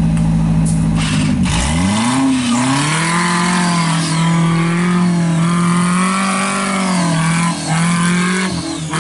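Off-road buggy's engine running steadily, then revved up about a second and a half in and held at high revs under load as the buggy climbs out of a muddy creek bed, easing off briefly near the end.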